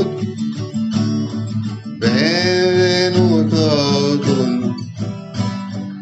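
Acoustic guitar playing song accompaniment, plucked and strummed chords, with a held melody line sliding in pitch over it from about two seconds in.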